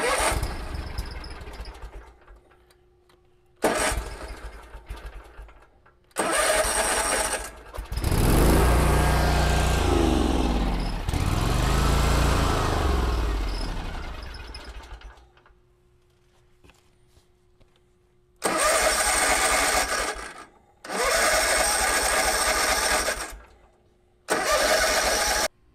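Kubota Z122R mower engine cranked by its starter in three short bursts. About eight seconds in it catches and runs for several seconds, its speed sagging and surging before it dies away. It is starved of fuel, running only on what is left in the carburetor bowl. Three more short bursts of cranking follow near the end.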